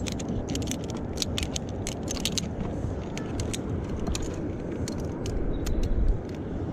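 Steel carabiners of a ropes-course safety lanyard clicking and clinking as they are handled and clipped: a quick run of sharp metal clicks over the first couple of seconds, then scattered clicks. A steady low rumble runs underneath and swells briefly about six seconds in.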